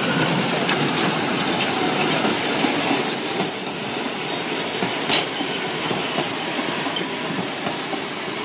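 Narrow-gauge passenger cars rolling past behind a small steam locomotive: a steady rumble and rattle of wheels on the rails with a few short clicks, getting a little quieter after about three seconds.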